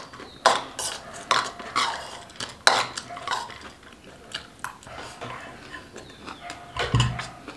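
Metal spoon clinking and scraping against a bowl as a person scoops up and eats a snack, with a series of separate sharp clicks throughout.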